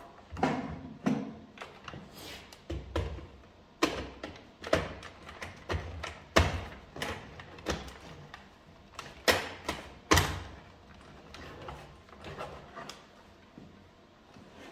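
A series of irregular knocks, thuds and clicks of plastic parts being handled on an Electrolux Ultra Power stick vacuum. The two loudest knocks come about six and ten seconds in, and the knocks thin out near the end.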